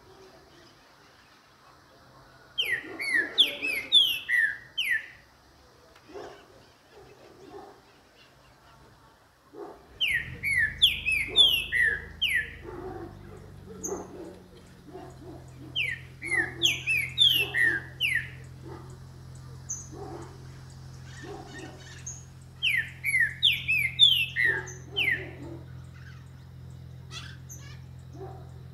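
Green-winged saltator (trinca-ferro) singing: loud phrases of quick falling whistled notes, four phrases repeated every six or seven seconds.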